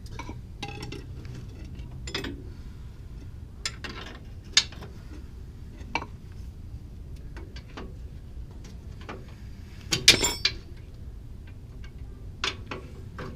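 Scattered metal clinks and clanks of hand tools and parts being handled, with a louder cluster of clanks about ten seconds in, over a low steady hum.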